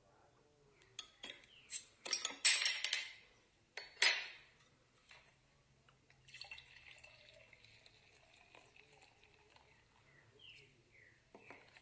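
Liquid being poured into a glass: a few glassy clinks, two louder splashing gushes about two and four seconds in, then a quieter, steadier pour for several seconds.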